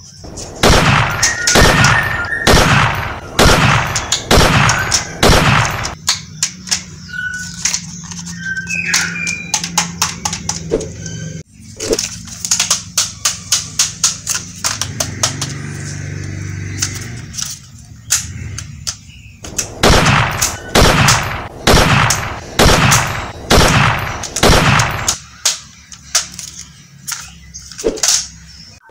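Plastic toy pistols firing repeatedly with gunshot sounds, in runs of about two shots a second, with stretches of faster rapid clicking in between.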